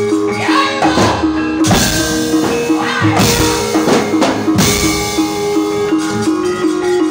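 Javanese gamelan accompanying a wayang kulit puppet scene: a repeating metallophone melody of about two notes a second over kendhang drumming. From about one to four and a half seconds in, a flurry of sharp knocks and clatter cuts across it, the dalang's cempala and keprak struck as the puppets fight.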